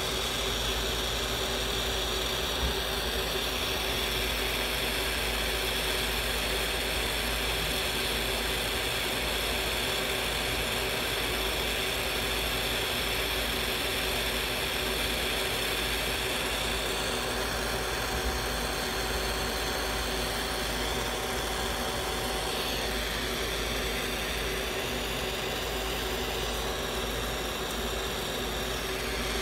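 Glassworking bench torch flame burning steadily, an even, unbroken rushing noise.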